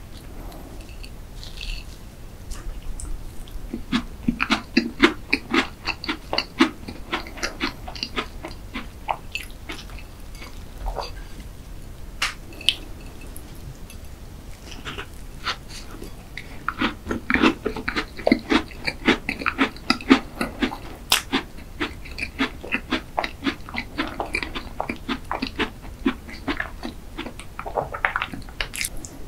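Close-miked chewing of a crunchy chocolate tart crust with cream filling: two long stretches of crackling, rhythmic chewing at about three chews a second, one starting about four seconds in and another about seventeen seconds in, with scattered crunches between.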